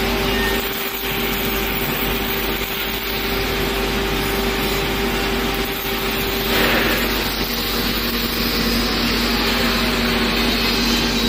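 Robotic MIG welding cell at work: a steady hiss and hum from the welding arc and equipment, with a louder rush of arc noise about six and a half seconds in.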